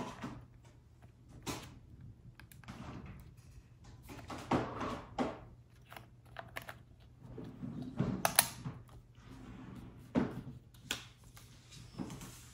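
Fingers fitting DDR4 SODIMM memory modules into a laptop's memory slots: scattered small clicks, taps and scrapes of plastic and metal parts, with one sharp click a little past eight seconds.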